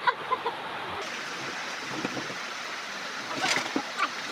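Steady rushing of floodwater, with a short sharp knock or splash about three and a half seconds in.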